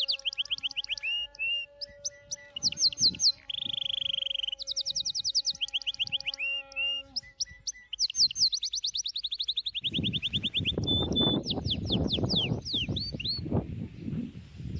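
Songbirds singing in rapid chirping trills, phrase after phrase. About ten seconds in, a loud, rough rustling noise joins them.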